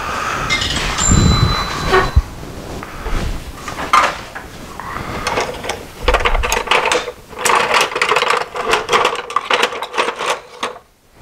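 Workshop handling noise: scattered knocks and clinks, then a quick run of metal clattering and rattling as hand tools are rummaged through at a tool chest, cutting off shortly before the end.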